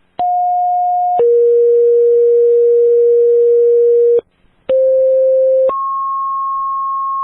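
Fire dispatch two-tone paging tones over a scanner radio, alerting fire units to a call. A short tone steps down to a long lower one, then after a brief gap a second pair: a short tone rising to a long higher tone.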